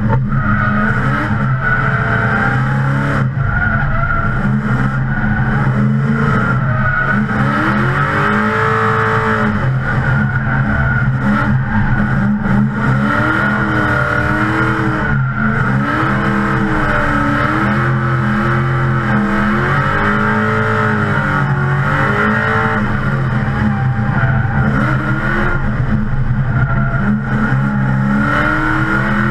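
LS2 V8-swapped Nissan 350Z drifting, heard from inside the cabin: the engine revs rise and fall again and again under load over a steady tire squeal.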